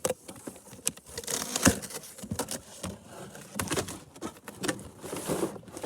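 Cardboard packaging being opened and handled: irregular knocks, scrapes and rustling as the chainsaw's box is worked open.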